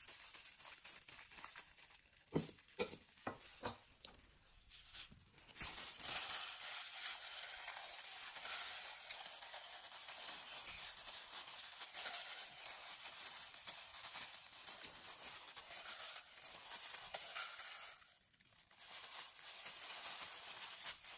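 A few light knocks of kitchen handling in the first seconds, then steady crinkling and rustling of a plastic food-prep glove as mango chunks are laid onto whipped cream on a sponge cake layer.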